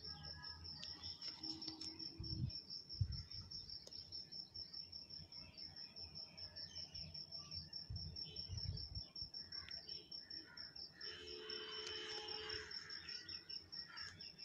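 Faint, rapid, insect-like chirping: a steady high-pitched pulse repeating several times a second. A few faint low thumps come in now and then.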